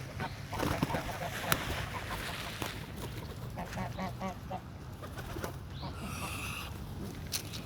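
Geese and ducks calling while being fed: a run of short, quickly repeated calls near the middle, then one higher, longer call near the end.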